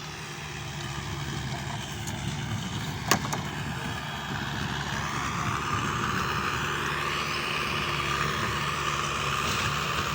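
An engine running steadily, with a single sharp click about three seconds in and a hissing noise that builds from about halfway through.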